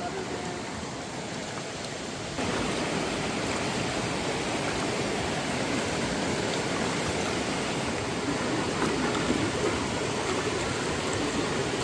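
Steady rush of flowing water, stepping up in loudness about two and a half seconds in.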